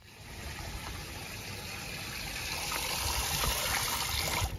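Water gushing from a tap into a plastic tub, a steady splashing that grows slowly louder as the tub fills.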